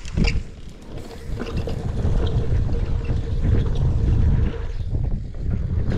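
Wind buffeting the microphone and mountain bike tyres rolling over packed dirt as the bike rides down a line of dirt jumps, with a steady hum through the middle and a few rattling clicks at the start. The rumble eases briefly about five seconds in, then picks up again.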